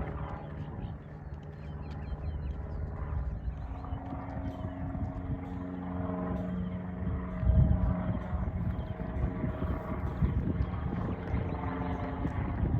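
An engine drone: a steady low hum with a few pitched tones that shift slightly, and a brief louder rumble about seven and a half seconds in.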